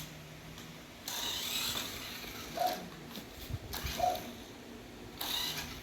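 Toy remote-controlled monster truck's electric motor and gears whirring in short bursts as it is driven, one of about a second near the start and a shorter one near the end.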